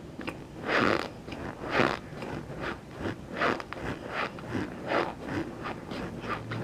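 Close-up chewing and crunching in the mouth: a loud crunching bite about once a second or so, with quieter chewing crunches in between.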